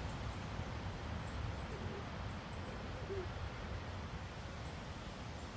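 Birds in trees: short, faint, high-pitched chirps repeating every half second or so over a steady low rumble, with a soft low call about three seconds in.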